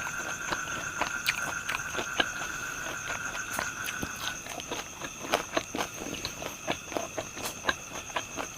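Close-up chewing of crispy fried pork intestines, with sharp irregular crunches several times a second. Steady high thin tones run behind it, one of them stopping about four seconds in.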